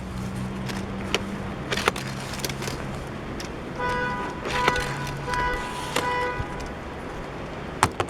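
Die-cast Hot Wheels car running on a plastic toy track: a steady low hum that fades out partway, a few sharp clicks, and a short buzzing tone that sounds four times in the middle.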